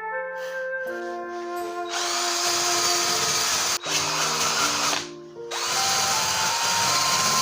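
A power tool running over background music: it starts about two seconds in, cuts out for half a second a few seconds later, then runs on.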